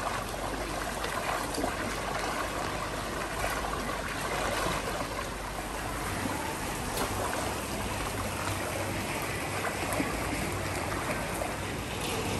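Floodwater running through a street: a steady rushing and trickling of water.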